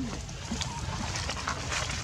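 Macaques making a few short, faint sounds, a handful of quick clicks or squeaks, over a low steady rumble.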